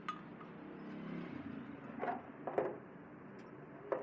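Terminal-box cover being fitted onto an electric motor: a sharp click at the start, two short knocks about half a second apart midway and another near the end as the lid is set and seated, over steady background noise.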